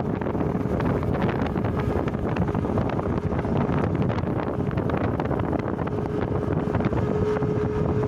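Wind rushing over the microphone from a moving vehicle on the road, with engine and road noise underneath. A faint steady hum comes through more clearly near the end.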